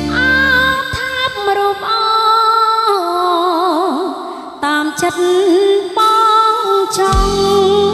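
Woman singing a Khmer sentimental song live with a band, holding long notes with a wavering vibrato over keyboard accompaniment. The bass and drums drop out for most of the passage and come back in near the end with kick-drum thumps.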